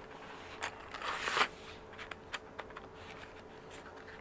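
A bundle of wooden drawing pencils handled and slid into their cardboard box: a short scraping rustle about a second in, with a few light clicks of pencils knocking together.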